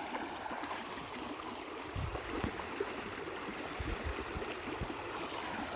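Shallow creek water running and trickling steadily over a rocky road bed. A few soft low thumps come about two seconds in and again around four to five seconds in.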